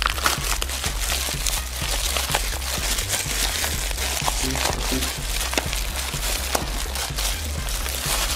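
Thin plastic mailer bag crinkling and tearing as it is handled and pulled open, with a plastic-wrapped parcel rustling out of it. Background music with a steady bass beat plays underneath.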